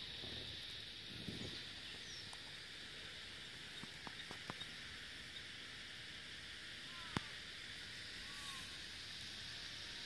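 Cicadas droning steadily, a continuous high-pitched buzz. A few light clicks come near the middle, and a sharp knock about seven seconds in.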